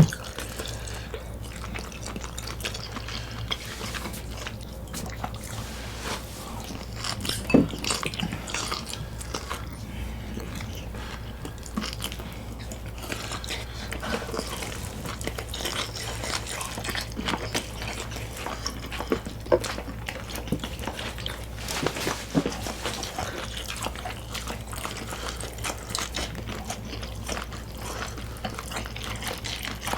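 Close-miked eating: people chewing and biting into food, a scatter of small crunches and wet mouth sounds over a steady low hum.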